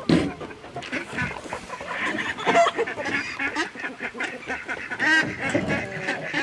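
Domestic poultry calling over and over in short, pitched calls, with a sharp knock right at the start.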